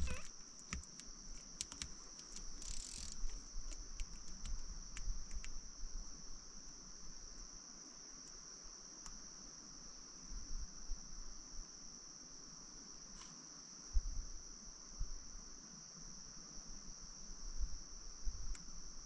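Insect chorus: a steady, unbroken high-pitched trill, with scattered light clicks in the first few seconds and a soft knock about 14 seconds in.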